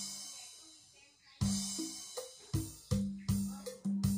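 Drum sounds played by hand on an arranger keyboard's keys: a cymbal crash with a low drum hit ringing out, then a run of separate drum hits that come faster toward the end.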